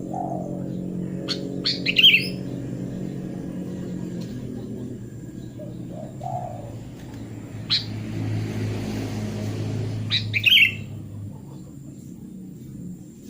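Sooty-headed bulbul (kutilang) giving short, bright chirping phrases twice: about a second and a half in, and again about ten seconds in. A steady low hum runs underneath.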